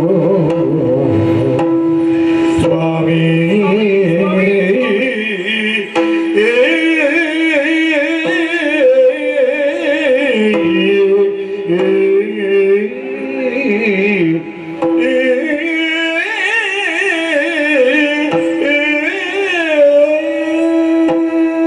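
Yakshagana bhagavata singing an ornamented verse in Carnatic style, the voice wavering and gliding over a steady shruti drone.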